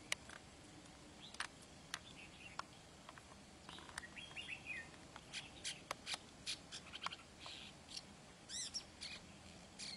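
Shrike singing a varied string of short, sharp clicks and brief chirps, with a quick run of arching notes near the end.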